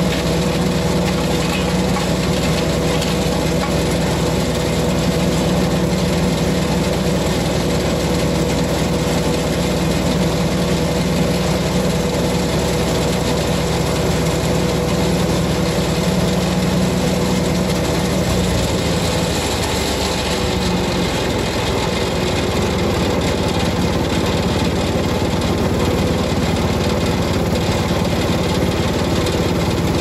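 Lumag HC10 wood chipper's engine running steadily; about eighteen seconds in its pitch drops and it settles into a slower, lower run.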